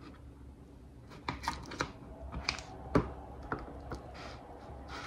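Metal spoon clicking and scraping against a plastic food container while spreading cream cheese on French toast: a run of light, irregular clicks and taps starting about a second in, the loudest about three seconds in, over a faint steady hum.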